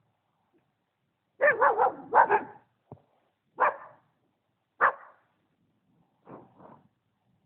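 A dog barking: a quick run of barks about a second and a half in, then single barks about a second apart, with two fainter barks near the end.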